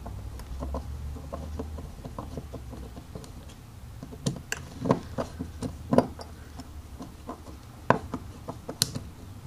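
Small metal clicks and taps of a screwdriver working a brass jet into a Tecumseh carburetor body, sparse at first and more frequent in the second half.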